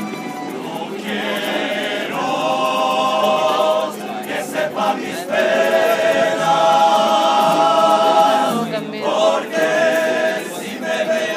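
Student tuna, a men's chorus in capes, singing a serenade together. The voices swell about two seconds in and hold long chords, with a short break in between.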